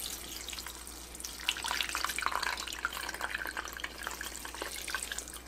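Water poured in a steady stream into a blender pitcher packed with cut fruit, kale and frozen mango, splashing and trickling down through the pieces.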